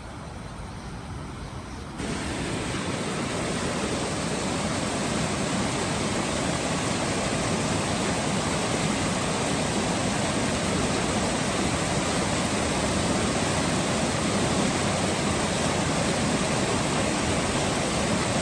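Steady rushing of a swollen river's water, an even noise with no distinct strokes; it turns abruptly louder about two seconds in.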